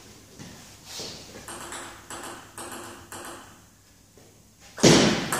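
Table tennis rally: the ball clicking back and forth off the bats and the table, about two hits a second, then stopping. Near the end a sudden loud burst, louder than the rally.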